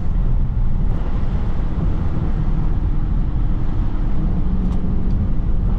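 Dodge Charger Hellcat's supercharged V8 running steadily at driving speed, mixed with a constant hiss of tyres on a wet road.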